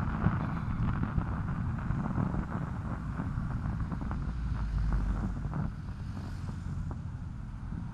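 Wind buffeting the microphone of a helmet-mounted action camera on a moving bicycle, with a steady low road rumble and scattered small knocks. The rumble swells about five seconds in, then eases.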